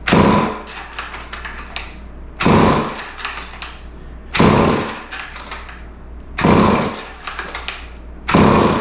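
Vintage Montgomery Ward 10-inch two-stroke chainsaw being pull-started: five sharp pulls on the recoil starter about two seconds apart, each a short whirring rasp. The engine does not keep running between pulls.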